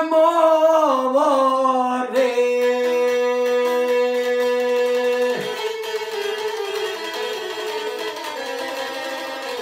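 Çifteli, the Albanian two-string long-necked lute, playing a long held note and then, about halfway through, a busier run of notes. For the first two seconds a man's voice is still singing over it, drawing out the end of a line.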